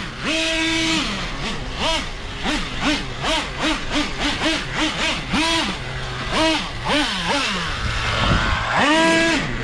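Traxxas Revo 3.3 truggy's small two-stroke nitro engine revving in quick repeated throttle blips, the pitch rising and dropping back with each one. It holds a longer high rev at the start and again near the end.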